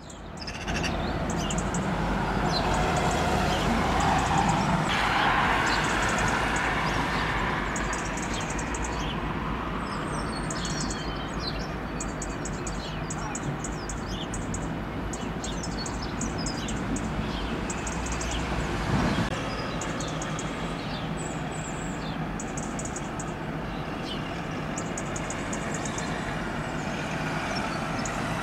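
Steady low mechanical hum over a rumbling background noise, with small birds chirping repeatedly throughout.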